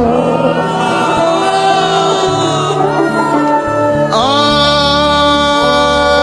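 Arabic devotional song: a male voice sings long, drawn-out melodic notes over a low sustained backing, and a new phrase begins about four seconds in.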